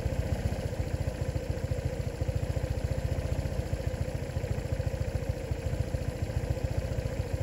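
A small engine running steadily at idle, a fast, even chugging with a steady hum over it.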